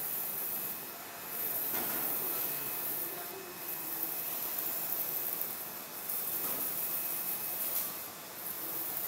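UV LED flatbed ceramic printer running: a steady machine hiss that swells and eases every few seconds as the print carriage sweeps back and forth over the tiles.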